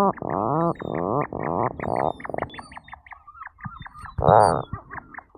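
Atlantic puffin calling: a low, pitched call broken into rapid pulses, about four a second, fading out after a couple of seconds, then one louder, longer note about four seconds in. Faint high chirps of other birds sound above it.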